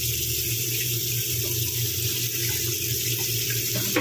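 Kitchen tap running steadily, water splashing onto raw pork and into a plastic basin in a stainless steel sink, over a steady low hum.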